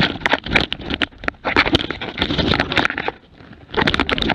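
Handling noise from an action camera worn by a running jämthund (Swedish elkhound): fur and harness scraping and rubbing over the microphone in uneven bursts of crackling and clicking.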